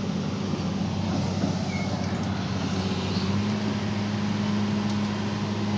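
Small excavator's diesel engine running steadily close by, its note stepping up slightly about three and a half seconds in.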